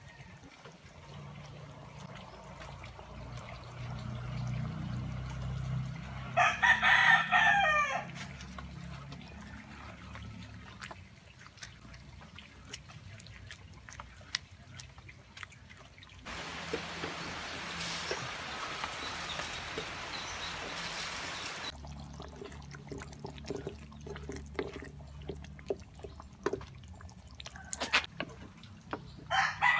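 A rooster crows loudly about six seconds in, and again at the very end. In between, a steady hiss runs for about five seconds past the middle, with scattered small clicks and knocks.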